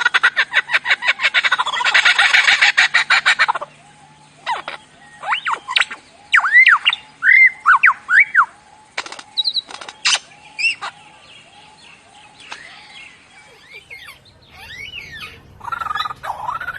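Bird calling: a fast rattling chatter for the first few seconds, then a string of short, arching whistled chirps, then scattered quieter calls.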